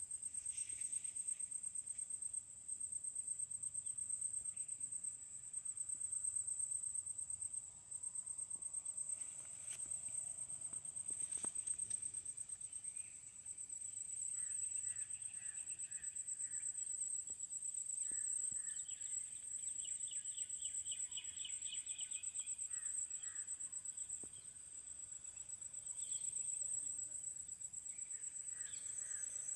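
An insect trilling steadily: a high-pitched, rapidly pulsing tone that does not let up. A few faint bird chirps come in partway through.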